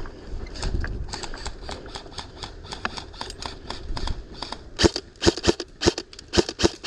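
Airsoft guns firing, a string of sharp clicking shots: scattered and fainter at first, then a rapid run of louder shots from about five seconds in.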